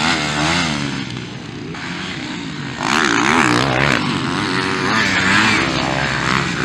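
Dirt bikes' engines revving and dropping as riders power through the track, the pitch rising and falling with each throttle change. Louder and harsher from about three seconds in, as a bike accelerates close by.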